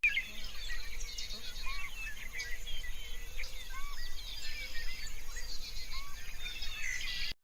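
Many small birds chirping at once, a dense chorus of short, high calls with a few lower slurred notes mixed in, over a faint steady hum.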